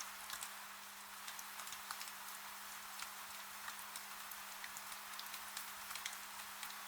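Rain falling: a steady hiss with many irregular drop clicks pattering at random. A faint, steady low hum runs underneath.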